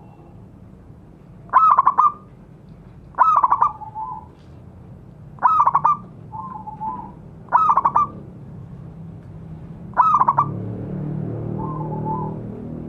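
Zebra dove (perkutut) calling: five short bursts of rapid staccato cooing notes about two seconds apart, several of them followed by a softer, lower pair of coos. A low rumble comes in near the end.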